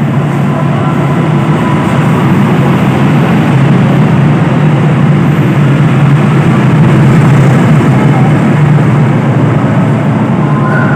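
KAI long-distance passenger train passing close by behind its diesel locomotive: a loud, steady, low engine drone mixed with the rumble of carriage wheels on the rails, swelling slightly toward the middle.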